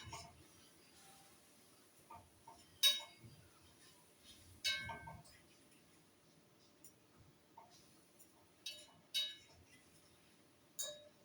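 Cookware clinking: a spoon and lid knocking against a cooking pot, about half a dozen sharp metallic clinks, each ringing briefly, spread out with pauses between.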